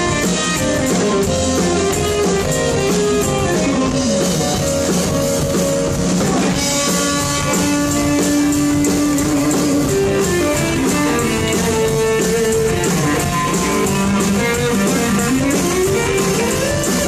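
Live rock band playing an instrumental passage: an electric guitar lead with notes that slide up and down, over a drum kit and bass.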